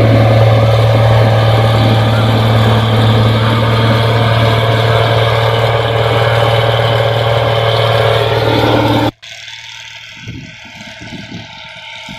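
New Holland Clayson 1545 combine harvester's engine running loudly and steadily with a strong low hum. About nine seconds in it cuts off abruptly to a much quieter engine sound with a few low thumps.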